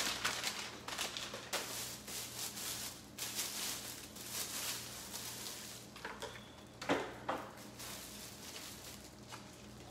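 Clear plastic bread bag crinkling and rustling as a long loaf of Cuban bread is pulled out of it, louder in the first half and thinning out toward the end, with a couple of sharper crackles late on.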